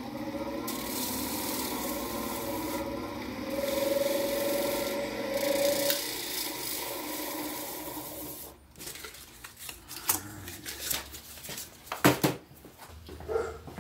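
A bar of stropping compound rubbed against a spinning MDF stropping wheel on a bench grinder: a steady rubbing hiss over the motor's hum. The rubbing stops about two-thirds of the way through, and scattered knocks and clicks follow.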